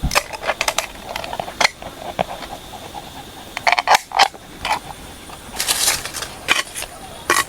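Camp cooking gear being handled: irregular clinks, knocks and scrapes of utensils and cookware, with a quick cluster of strokes about six seconds in.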